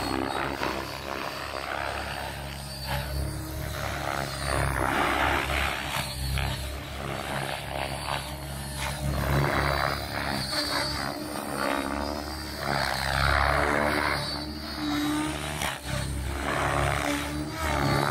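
Electric RC helicopter flying aerobatics: rotor blades whooshing and the motor whining, swelling and fading about every four seconds as it manoeuvres, with its pitch wavering.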